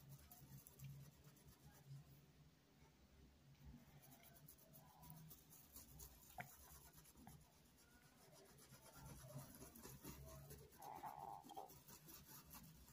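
Near silence, with the faint scratching of a paintbrush stroking fabric paint into cloth and one small tick about six seconds in.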